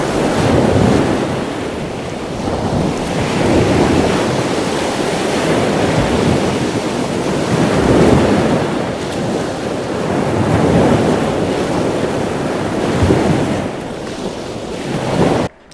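Ocean surf washing in and breaking, swelling and easing every few seconds, with wind buffeting the microphone. It cuts off suddenly near the end.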